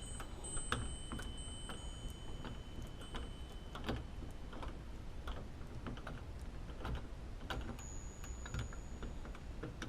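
Phillips screwdriver tightening the mounting screws of a doorknob: light, irregular metal clicks and ticks.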